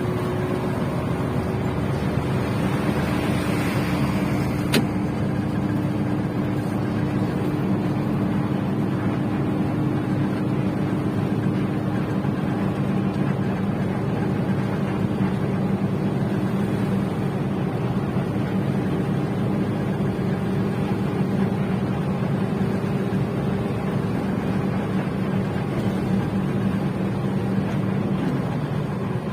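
Steady low engine drone with a constant hum and no change in pitch, broken once by a single sharp click about five seconds in.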